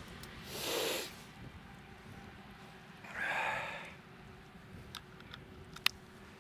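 Two short, noisy breaths from a person, about two and a half seconds apart, followed by a few faint clicks and one sharper click near the end.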